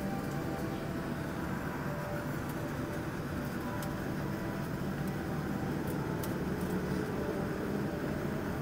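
Steady cabin noise of a jet airliner taxiing: a low, even drone of the engines at taxi power and the airflow, with a few faint ticks.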